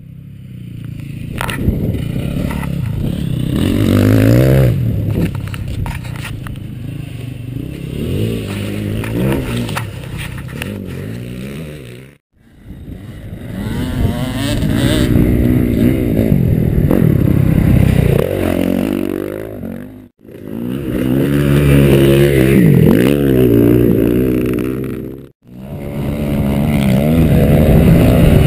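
Motocross dirt bike engine revving up and down repeatedly as it is ridden, the pitch rising and falling with the throttle and gear changes. The sound breaks off briefly three times.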